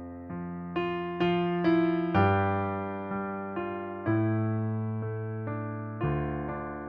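Solo piano (electric or digital piano sound) playing a slow hymn accompaniment in a minor key, with chords and single melody notes struck about every half second over held bass notes, each fading until the next.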